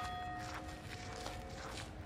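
A large bell rings on and fades after a single stroke struck just before, one of a slow series of strokes. Footsteps can be heard on the pavement beneath it.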